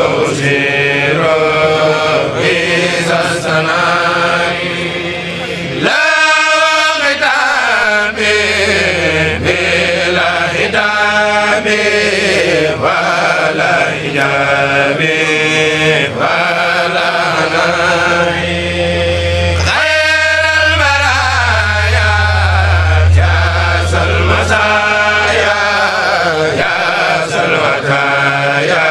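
Kourel group chanting a Mouride xassaid together: long, sliding vocal phrases in Arabic devotional verse, with a steady low tone under the voices at times.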